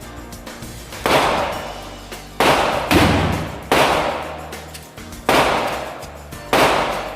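Six gunshots, each a sharp crack that trails off over about a second, fired at uneven intervals of roughly half a second to a second and a half. Background music plays underneath.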